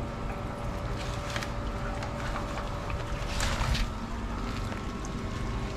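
Wind rumbling on the microphone, with a brief hissing burst about three and a half seconds in.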